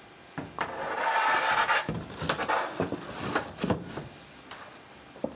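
A piece of countertop being slid into the gap beside a gas range: a scraping rub lasting about a second, then a series of knocks and clicks as it is shifted and settled into place.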